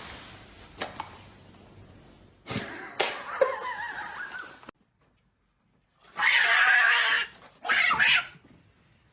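A cat crying with a wavering, gliding pitch that cuts off abruptly, then two loud rushing bursts of noise, the first about a second long.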